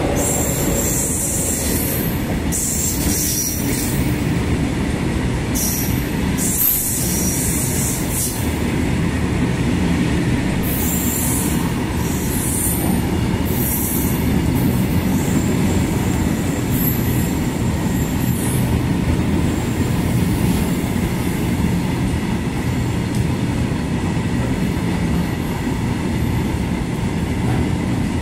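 Freight train of BTPN petroleum tank wagons rolling past close by: a steady rumble and clatter of wheels on rail. Bursts of high-pitched wheel squeal come and go over the first two-thirds.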